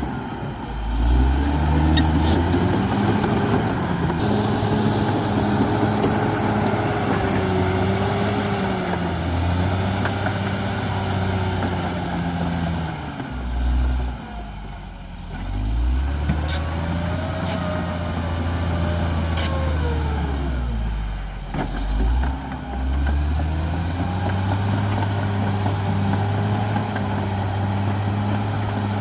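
CAT D6R XL bulldozer's diesel engine working under changing load, its pitch rising and falling again and again, with a faint high whine above it. The engine dips noticeably around the middle and again about two-thirds of the way through.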